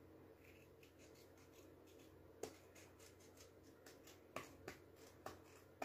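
Scissors snipping paper: quiet at first, then about five sharp clicks in the second half.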